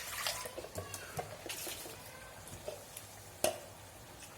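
A spoon or ladle knocking and scraping in a bell-metal uruli as a curry is stirred: scattered light clinks, with one sharper knock about three and a half seconds in.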